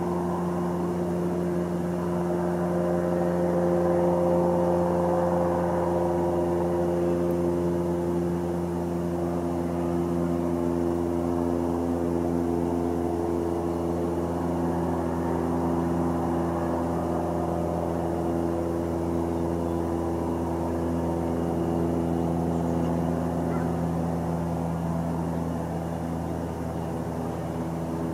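An engine running steadily with a constant hum, its pitch shifting slightly about halfway through.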